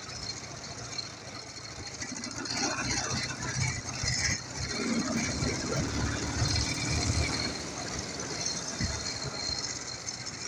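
Freshly overhauled Ural motorcycle's flat-twin engine running as the bike rides along, with a brief steady tone about halfway through.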